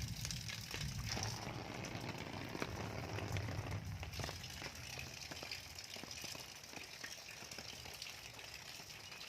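Rain falling, a steady hiss with scattered drops ticking on a surface. A low rumble underneath fades out about four seconds in.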